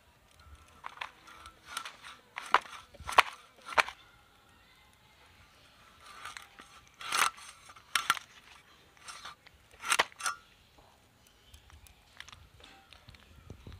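A boti blade, a curved knife fixed on a wooden base, crunching through the hard spines and bony head of a large aar catfish. The crunches are sharp and irregular: a cluster in the first four seconds, a short lull, then another cluster about six to ten seconds in.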